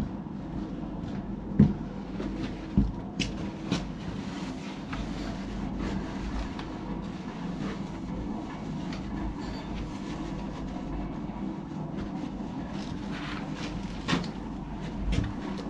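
Steady low rumble of water running through the plumbing into a water heater tank as it fills, with a few sharp knocks, the loudest about a second and a half in.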